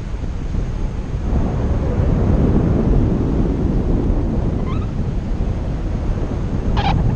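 Wind buffeting the microphone of a paraglider in flight: a steady low rumble that grows louder about a second in, with two short sharp sounds near the end.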